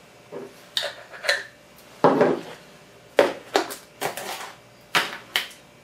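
Short clinks and knocks of small jars, lids and a plastic tub being picked up, handled and set down on a kitchen counter, about eight in all.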